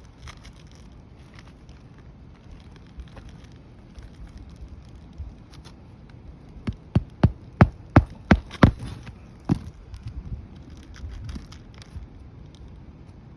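Hammer driving roofing nails into an asphalt shingle: a quick run of about seven sharp blows, roughly three a second, with one more blow a moment later, amid light scraping and rustling of shingles.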